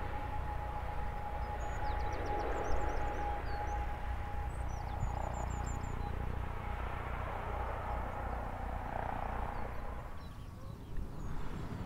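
ATR 72-600 twin-turboprop landing: its Pratt & Whitney PW127 engines and propellers make a steady rumble and hiss with a high, held whine as it touches down and rolls out. Small birds chirp a few times over it. About ten seconds in, the sound drops and changes.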